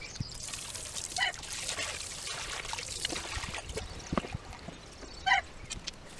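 Water trickling and sloshing in an old porcelain sink as it is scrubbed with a brush. A bird calls twice, a short call about a second in and another near the end.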